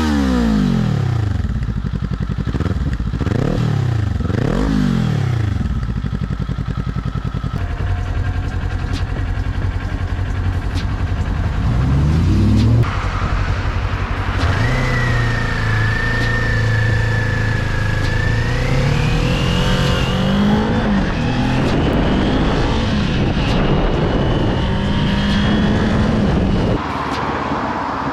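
Kawasaki Z400's parallel-twin engine revving several times in quick succession, then running with its pitch rising and falling. The sound changes suddenly about 13 seconds in.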